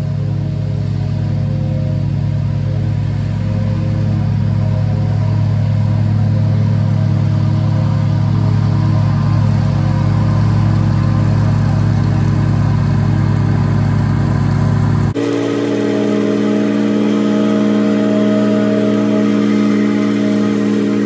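Riding lawn mower's engine running steadily as the mower drives across the lawn. About fifteen seconds in, the sound changes abruptly: the deep hum drops away and a higher steady tone takes over.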